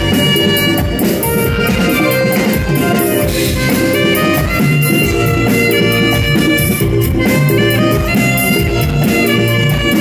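Live band playing an instrumental: a saxophone carries the melody over electric guitar, bass guitar, keyboard and a drum kit keeping a steady beat.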